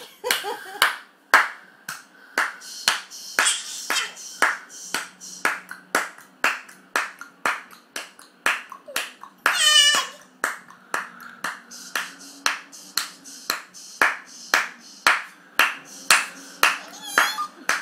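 Hands clapping a steady beat, about two to three claps a second. About halfway through comes a short, high, wavering vocal cry.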